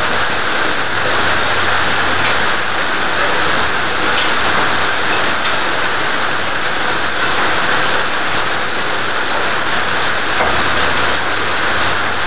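Steady heavy rain, an even, continuous hiss.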